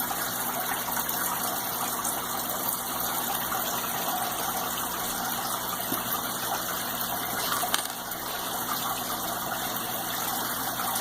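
Steady rushing background noise, even throughout, with one faint click a little past halfway.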